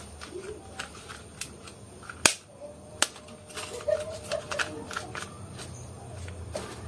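Marbles clicking and clattering on a wooden marble run, with one sharp knock about two seconds in and a quick flurry of small clicks a little later.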